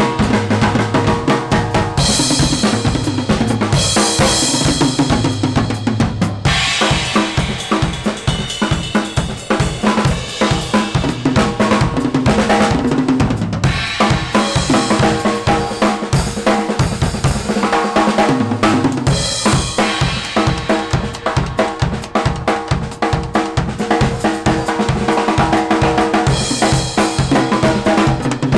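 Acoustic drum kit played in a fast, driving groove: rapid bass drum strokes under snare and tom hits, with cymbals crashing and washing over it in several stretches. The bass drum drops out for a few seconds about two thirds of the way through.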